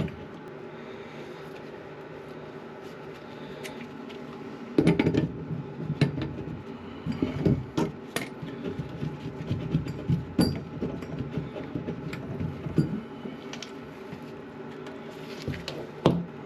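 Irregular knocks and clunks of the old toilet fill valve being unscrewed and pulled out of the tank, over a steady low hum.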